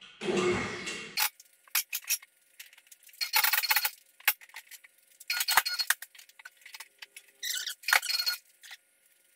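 A two-post car lift's motor runs for about a second. Then come scattered squeaks, clinks and a few sharp metallic clicks as the Corvette body is raised off its frame on straps.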